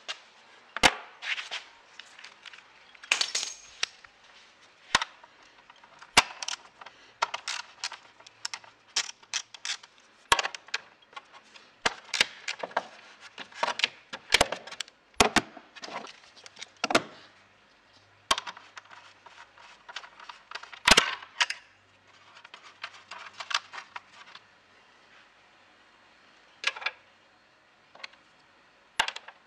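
Many sharp metallic clicks and clinks at an irregular pace from a 10 mm socket and wrench being handled and used to undo two small screws, with a quieter pause about three quarters of the way through.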